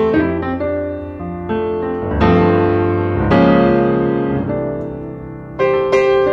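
Background piano music: slow chords and melody notes, each struck and left to ring, with fresh chords about two seconds in, again about a second later, and twice near the end.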